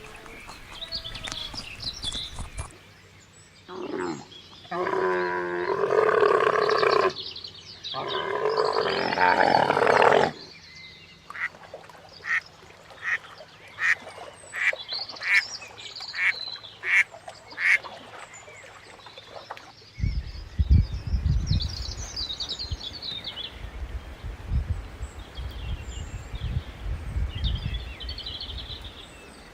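Farm animals calling: two long, wavering calls, then a run of short, evenly spaced quacks, a little under two a second. Low rumbling noise and faint chirps fill the last third.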